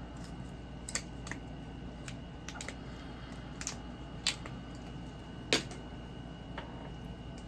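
Scattered sharp clicks and taps of hard plastic toy parts being handled, about a dozen irregular clicks. The loudest come a little past four seconds in and again about a second later, over a steady low room hum.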